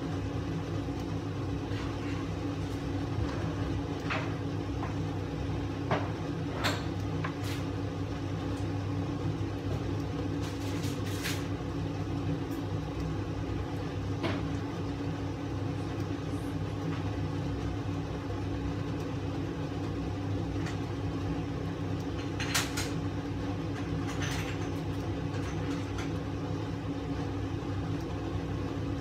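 Steady hum of a running kitchen appliance, with a few sharp pops and crackles scattered through from food cooking in a lidded frying pan.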